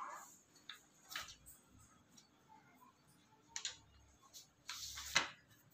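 Scattered soft ticks and rustles of a large textbook's paper pages being handled and turned by hand. The loudest rustle comes near the end.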